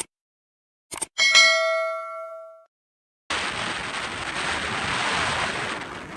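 A metallic chime: one bell-like strike that rings with several clear tones and fades over about a second and a half, after two short clicks. Then, after a silent gap, steady wind-and-sea noise cuts in about three seconds in.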